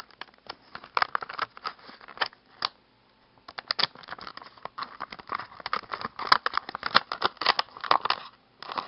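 Packaging crackling and crinkling in quick irregular clicks as a skin is worked free of the package it sticks to, with a brief lull about three seconds in.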